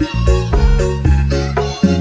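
Background music: a melody of changing notes over a steady bass line.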